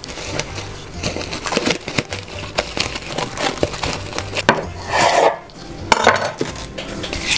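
Plastic cling film pulled off its roll and spread over a countertop: crinkling and rustling, with light knocks of the roll and hands against the counter. Two louder pulls of the film come about five and six seconds in.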